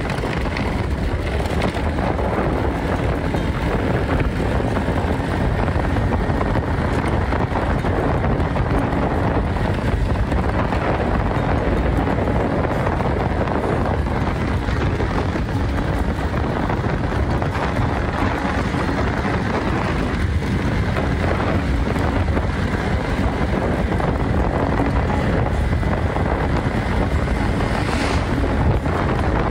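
Wind buffeting the microphone over the steady running of a motor scooter's engine while riding at road speed. A truck passes close near the end.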